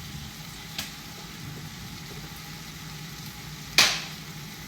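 Taco meat sizzling in a frying pan, a steady hiss, with a faint click about a second in and one sharp knock near the end.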